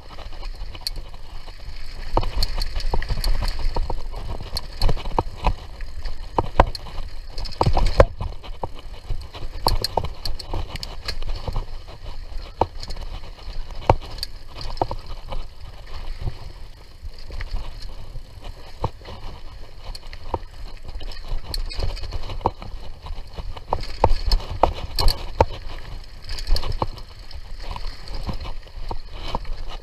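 Mountain bike ridden along a dirt trail: a rumble from the tyres and frame, with frequent sharp knocks and rattles as it rolls over bumps.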